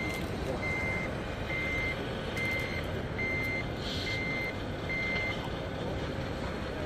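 Reversing beeper of a radio-controlled scale model truck: a single high beep repeated about every 0.8 s, seven times, stopping about five seconds in.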